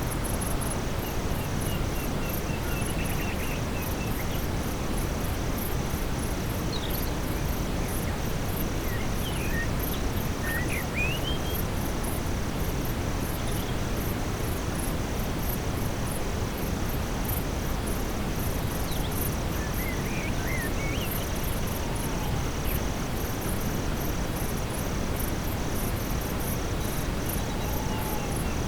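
Steady brown noise mixed with an evening forest ambience: insects trill without pause in rapid high-pitched pulses. A few brief chirping calls come about ten and twenty seconds in.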